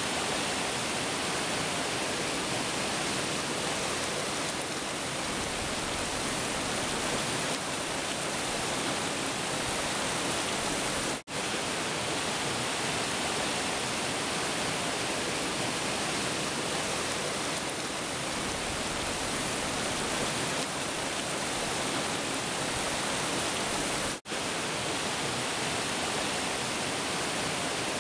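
Mountain stream rushing over rocks: a steady, even rush of water, cut off for an instant twice, about eleven and twenty-four seconds in.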